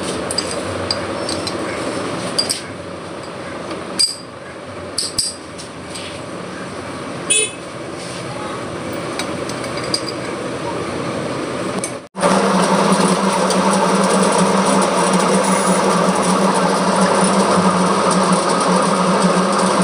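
Metal lathe running as it turns an A-type V-groove pulley, a steady mechanical drone with a few sharp clicks and knocks in the first part. After a break about 12 s in it runs louder and steadier, with a strong low hum.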